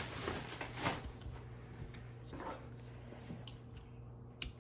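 Protective wrapping sheet being pulled off a couch section in its cardboard box, rustling in several short bursts, loudest in the first second, followed by a couple of light clicks near the end.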